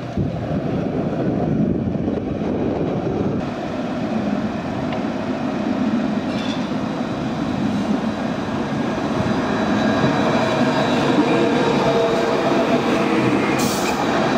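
Alstom Citadis tram running past at close range, its rolling rumble growing louder as it approaches, with a thin high whine joining in the second half.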